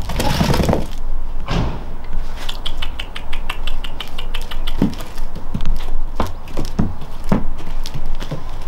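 A goat's hooves knocking on the top of a raised box as it shifts and turns, after a noisy rush at the start and a quick run of light clicks, over a steady low rumble.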